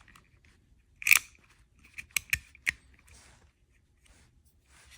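Clicks from handling a Craftsman retractable utility knife, its blade slider and carrier snapping into place. There is a sharp click about a second in, then a quick run of four clicks around two seconds in, followed by faint scraping.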